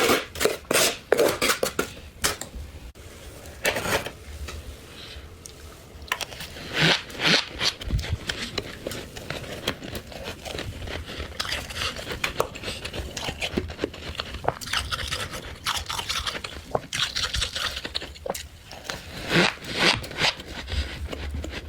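Soft frost being scraped and crunched, a run of short rasping strokes coming in irregular clusters with brief pauses between them.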